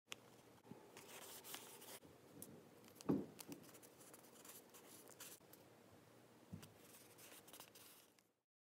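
Quiet paper-crafting handling sounds: a glue stick rubbing over paper and fingers pressing and smoothing paper cutouts onto a journal page, with scattered light clicks. A soft thump about three seconds in is the loudest sound, and a smaller knock comes later; the sound stops abruptly near the end.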